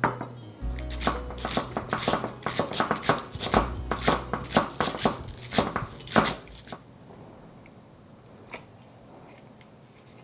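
Knife chopping food on a cutting board: about twenty sharp cuts at roughly three a second, stopping about seven seconds in, with one more light knock a little later.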